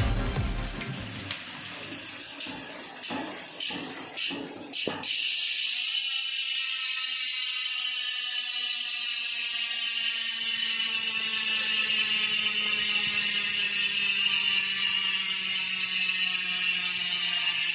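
ARC MT006 mountain bike hub's four-pawl freehub ratchet freewheeling: a few separate clicks, then from about five seconds a continuous buzz of clicks whose pitch slowly falls as the wheel coasts down.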